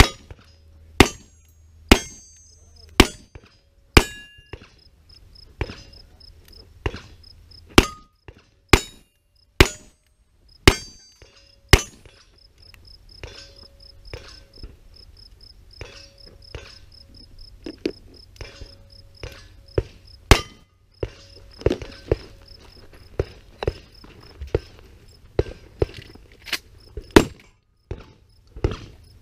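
A long string of gunshots from a revolver and then a rifle firing at steel targets, about one shot a second at first and irregular later, with some hits followed by a short metallic ring from the steel.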